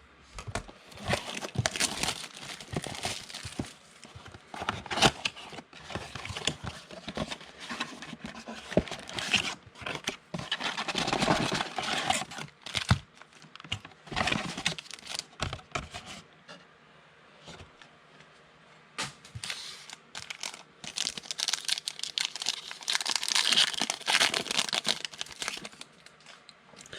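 Packaging of a blaster box of basketball trading cards being torn open and crinkled, in irregular bursts, with a quieter pause past the middle.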